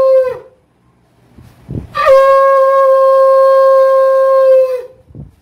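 Conch shell (shankh) blown in long, steady-pitched blasts: one blast cuts off just after the start, then after a pause of about a second and a half a second blast sounds for about three seconds, starting with a brief upward flick and sagging in pitch as it ends.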